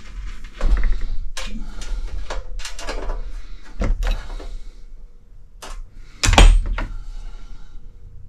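Hand tools being picked up and handled, with irregular clicks and knocks against a socket-set case and the plastic housing of a Honeywell HZ510 space heater being screwed back together; one louder knock comes about six and a half seconds in.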